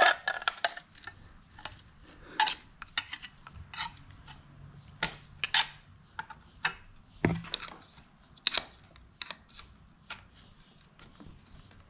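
Flathead screwdriver prying and scraping at the old water pump plate and gasket on an outboard motor's lower unit to work them loose. It makes a string of irregular sharp clicks and scrapes.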